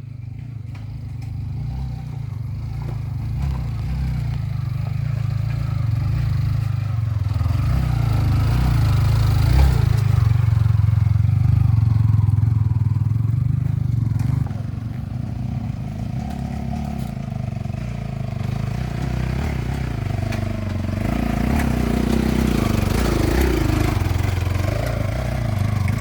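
A vehicle engine running under load on an off-road ride, a deep rumble that builds up to its loudest around the middle, eases off a little about halfway, then picks up again.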